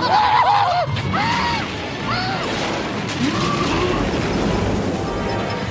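Anime soundtrack: music mixed with crashing, booming sound effects, a few short swooping pitched sounds in the first couple of seconds, and a low rumble building toward the end.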